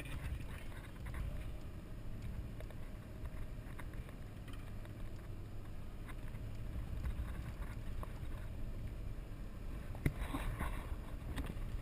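H1 Hummer driving over a dirt trail, heard from its hood: a steady, muffled low rumble of engine and driving noise. A few sharp knocks and rattles come near the end.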